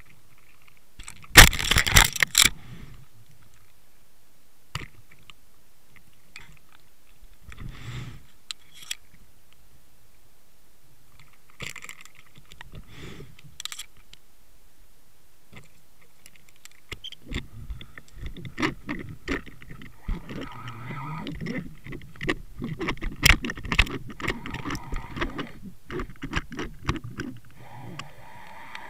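Underwater camera housing on a fishing line knocking, scraping and rattling as it is pulled through the water, with a loud cluster of clatter about two seconds in and a long, dense stretch of knocks and low rumbling in the last ten seconds while a hooked cod pulls on the line ahead of it.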